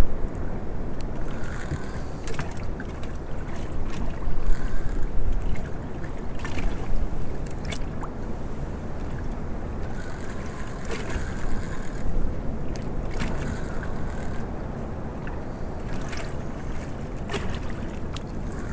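Wind and water lapping against a small open boat's hull, with recurring spells of a fishing reel being cranked and scattered sharp clicks as a hooked fish is played in.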